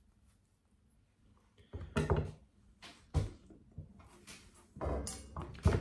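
A knife cutting through watermelon rind, with a few sharp knocks about two seconds in, then crunchy, wet bites into the watermelon slice near the end.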